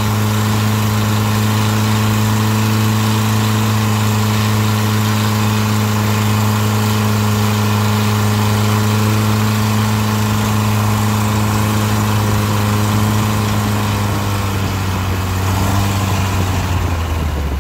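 Boat engine running steadily at speed with a deep, even hum, over the rush of water from the wake. Near the end the engine note drops a little as the boat slows.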